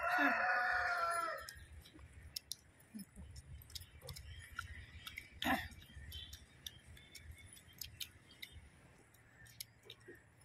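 A rooster crows once at the start, one call of about a second and a half that drops in pitch at its end. After it, only faint scattered clicks over a low hum.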